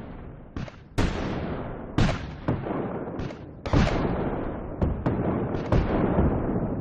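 Tank cannon firing sound effect: a series of heavy blasts about a second apart, each with a long rumbling decay.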